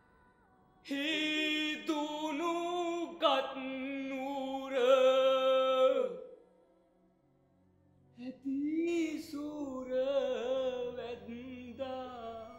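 A solo voice singing slowly and unaccompanied, with long wavering held notes, in two phrases; the second begins after a short pause about eight seconds in.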